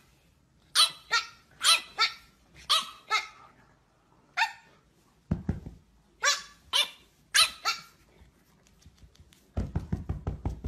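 French bulldog puppy giving about a dozen short, high-pitched yapping barks in ones and twos, with gaps between. Near the end comes a quick run of low thumps.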